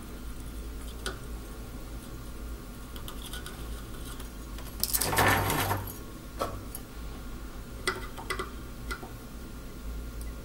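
Small handling sounds at a soldering bench: a few light metallic clicks and a noisy rustle lasting about a second around the middle, as a helping-hands clamp and solder wire are handled, over a steady low hum.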